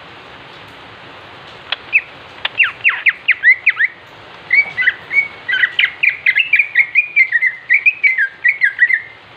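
Male greater green leafbird (cucak ijo) singing: a burst of quick sweeping whistles about two seconds in, then a fast unbroken run of chirping notes from about four and a half seconds until just before the end, over a steady hiss.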